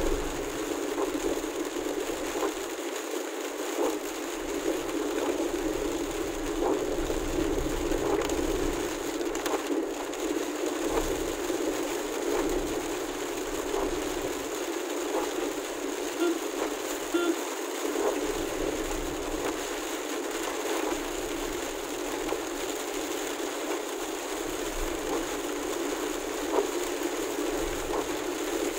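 Steady rain and tyre noise on a wet road, heard from inside a moving car, with scattered light ticks.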